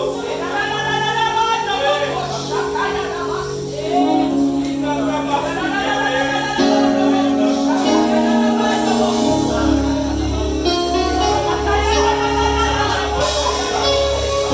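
Gospel worship song: voices singing over instrumental backing, with a deep bass coming in about two-thirds of the way through.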